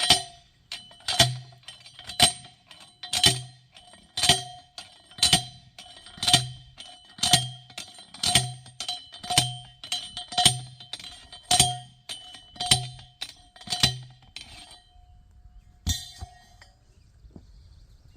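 Repeated metal clangs about once a second, each ringing briefly, about fourteen in a row, then a single clang after a short pause.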